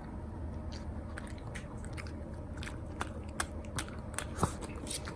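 Irregular sharp crunching clicks, coming faster and louder in the second half, over a steady low hum.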